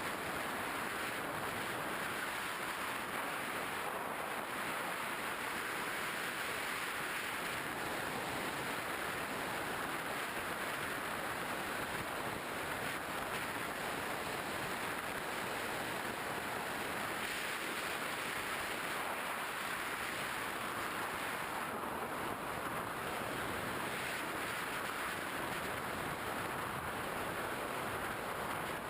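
Steady wind rush from air streaming past a camera on an RC plane in flight, an even hiss without change.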